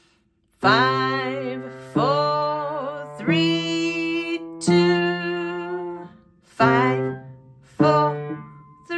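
Kawai upright piano, left hand playing slow single notes one step apart, rising four notes (C, D, E, F: fingers 5, 4, 3, 2) at about one note every 1.3 s, each left to ring. After a short gap the same rising run starts again near the end.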